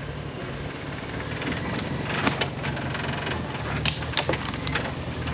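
Jeep engine running steadily at low speed as it crawls over rocks, with scattered clicks and knocks of tires and stones on rock.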